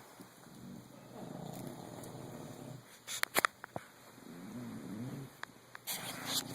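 English bulldog snoring in her sleep: about three long rumbling snores with her breathing, one wavering in pitch, with a burst of sharp clicks about halfway through and another near the end.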